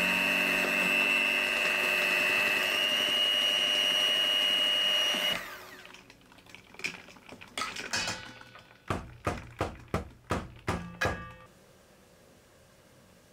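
Electric hand mixer whipping cream, with a steady high whine whose pitch steps up slightly about three seconds in; the cream is being whipped to soft-stiff peaks. The mixer stops about five seconds in. It is followed by a run of about a dozen light, sharp knocks and taps.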